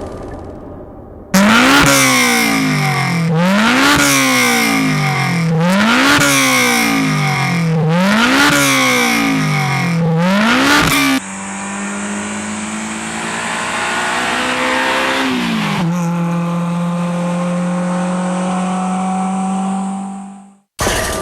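Honda S2000 four-cylinder engine on an aftermarket performance exhaust, revved hard again and again: about five high climbs and drops, roughly two seconds apart. After a cut, the engine is held at steady high revs, gets one more blip, and then fades away.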